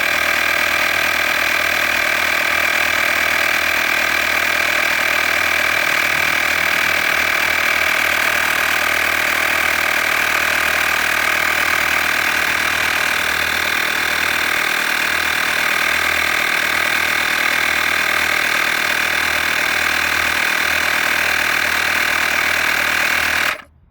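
Handheld air compressor from a tire repair kit running steadily as it pumps up a car tire. Near the end it cuts off suddenly, shutting itself off automatically at its preset 35 psi.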